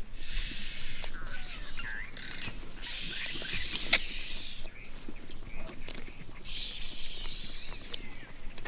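Vultures squabbling over a carcass, giving harsh hissing squeals in three bursts of about a second each, with a single sharp click near the middle.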